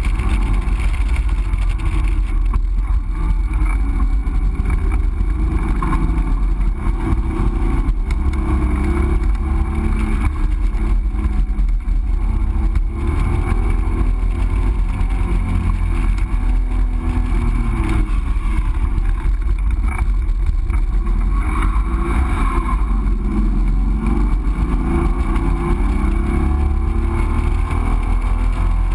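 Triumph TR6's straight-six engine running hard under load, its note climbing in pitch several times as it revs up through the gears, over a constant heavy low rumble.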